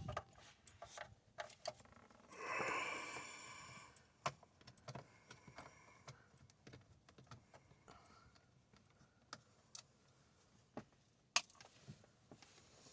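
Scattered light clicks and taps of a screwdriver and plastic dash parts as the unified meter and A/C amp module is unscrewed from the dashboard. About two and a half seconds in there is one louder scraping noise lasting about a second and a half.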